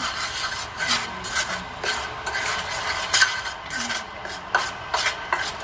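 Metal spoon stirring a dry mix of tapioca and wheat flour in a steel bowl: a run of irregular gritty scraping strokes, with a few sharper clicks of the spoon against the bowl.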